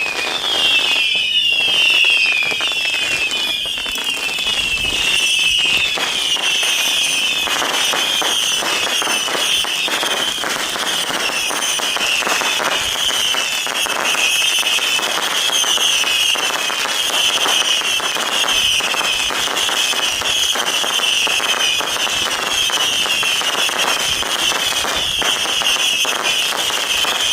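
Fireworks going off in a continuous run of crackling and popping bursts, with a steady high warbling chirp sounding over them throughout.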